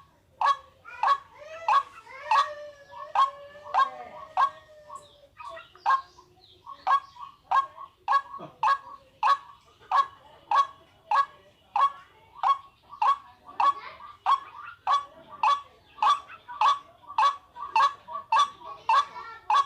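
Waterhen (pani murgi) calling: one loud, hoarse note repeated steadily about twice a second. Over the first few seconds other wavering, gliding calls overlap the repeats. This is a recorded call of the kind played to lure waterhens.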